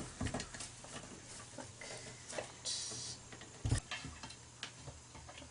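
Light clicks and taps of copper wire and pipe-wrench parts being handled, with a brief scraping hiss near the middle and one louder knock a little after it.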